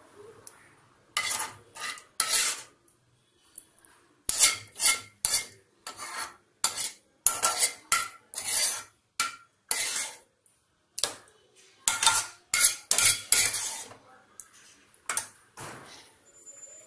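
Metal spoon scraping and knocking against a metal pan, a long run of short strokes in bursts, as thick tomato sauce is scooped out into a bowl.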